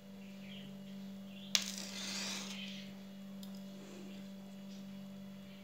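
A steady low electrical hum. About one and a half seconds in there is a sharp click, followed by about a second of hissing noise, and a faint tick comes a couple of seconds later.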